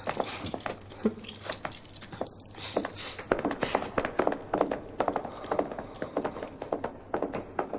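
Footsteps of several people walking on a hard floor, a quick, irregular run of steps.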